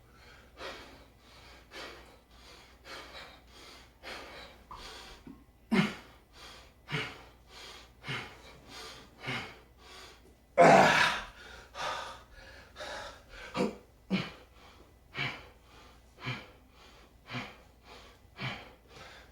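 A man breathing hard through a set of front raises, with short forceful exhales about once a second in time with the reps. There is a longer, louder gasp about eleven seconds in.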